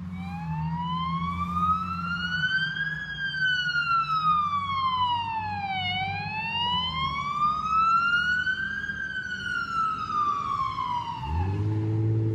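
Fire engine siren on a slow wail, rising and falling twice, each sweep taking about six seconds, over a low engine hum. It cuts off near the end as a heavy engine revs up.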